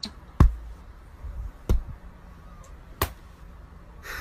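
Three sharp taps about a second and a quarter apart over faint room hiss, the first the loudest.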